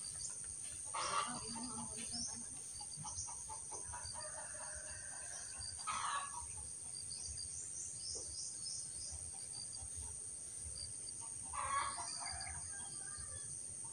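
Faint roosters crowing three times, about a second in, midway and near the end, with small birds chirping and a steady high insect drone.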